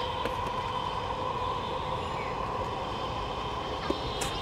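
Inline skate wheels rolling over brick paving: a steady, gritty rumble with a few light clicks.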